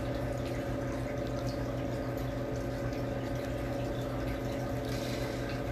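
Steady hum with running water from a saltwater touch tank's water system: its circulation pump and flowing water.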